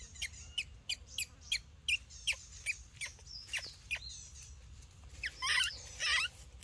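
High-pitched animal calls: a steady run of short, falling chirps about three a second, with two longer, louder wavering squeals near the end.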